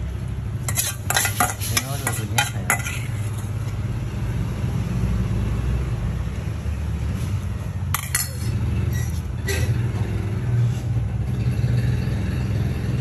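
A metal spoon clinking and scraping against a stainless steel feeding bowl: a quick cluster of clicks about a second in, and more around eight and nine and a half seconds in. A steady low hum runs under it.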